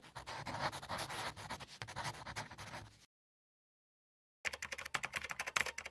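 Marker pen scratching across paper for about three seconds, then a short silence, then rapid keyboard typing clicks near the end.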